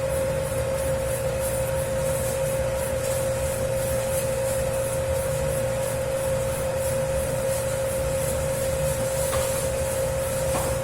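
Dough-kneading machine running steadily, working a large batch of pizza dough: a constant motor hum with low rumble and a faint swish repeating at an even pace as the dough turns in the bowl.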